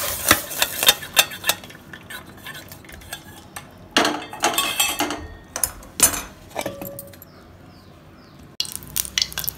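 Steel pot and perforated steel colander clinking and knocking together as boiled cluster beans are tipped out to drain, with the last of the draining water rushing at the start. Irregular metallic knocks follow for several seconds, then it goes quieter.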